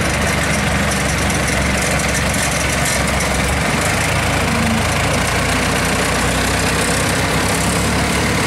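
The diesel engine of a Kubota DC-70 tracked combine harvester running steadily while the machine crawls slowly along.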